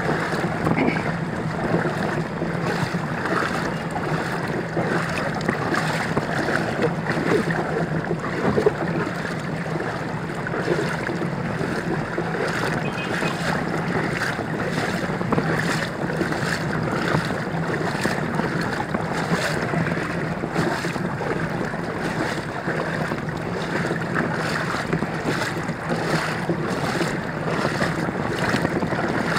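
Floodwater sloshing and churning steadily as a vehicle moves through a flooded street, with a constant low engine hum beneath.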